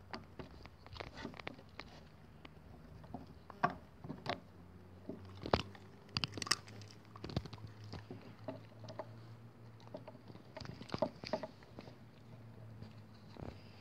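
Soft-coated wheaten terrier chewing a wooden stick: irregular crunches and sharp cracks as the wood splinters between its teeth, a few of them louder.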